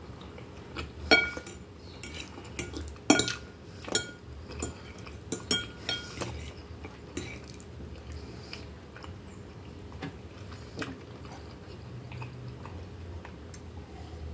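Metal fork clinking and scraping against a glass bowl as instant noodles are twirled, with several sharp ringing clinks in the first six seconds, then softer chewing.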